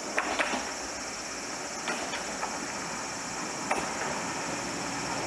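A single-car diesel railcar drawing slowly toward the platform, its engine giving a steady running sound, with a few short sharp clicks from the train along the way.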